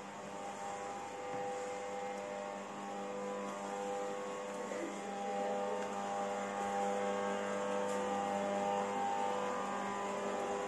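Steady indoor hum with several held tones that fade in and out, growing a little louder partway through.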